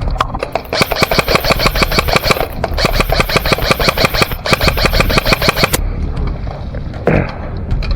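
Airsoft electric gun firing on full auto: three long bursts of rapid, evenly spaced shots, one after another, then a pause of about two seconds near the end.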